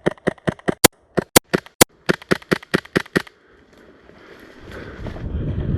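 Gas blowback airsoft submachine gun, an ASG MP9, fired in a rapid string of about twenty semi-auto shots, roughly six a second with two short breaks, for about three seconds. A swelling rush of noise follows near the end.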